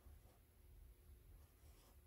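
Very faint rub of a felt-tip marker drawing short curved strokes on brown paper-bag paper, two soft strokes audible over a low steady room hum.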